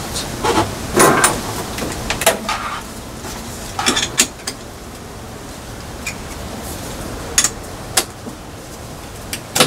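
Metal clinks and knocks from brass plumbing fittings being handled and fitted by hand: a handful of sharp, irregularly spaced clicks over a steady background hiss.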